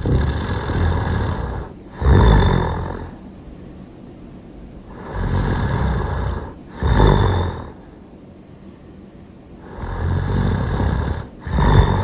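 A person snoring loudly in a steady rhythm: three snore cycles about five seconds apart, each a longer snore followed by a shorter, louder one.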